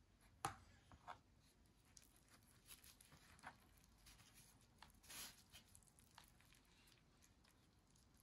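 Faint crinkling and rustling of a thin, dry flatbread sheet being folded and rolled by hand around a chicken filling on a wooden cutting board, with a sharp tick about half a second in, another near one second, and a short rustle about five seconds in.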